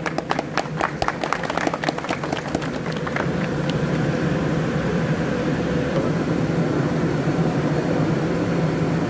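Scattered hand claps for about the first three seconds, over the steady drone of factory machinery in a weaving hall. The drone then carries on alone with a low, even hum.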